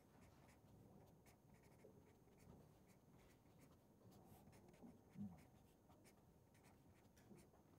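Very faint scratching of a felt-tip marker writing on paper, in short strokes.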